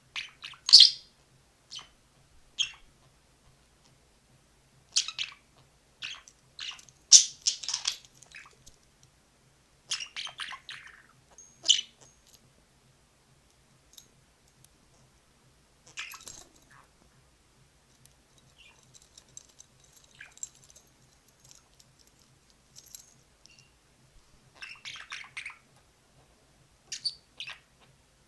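Budgerigar chirping and chattering in irregular bursts of quick, high chirps, with short pauses between them.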